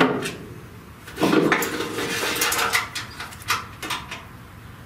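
Handling clatter and rustling as parts and wiring are worked at a van's sheet-metal front panel: a knock at the start, a stretch of clattering about a second in, then a few sharp clicks.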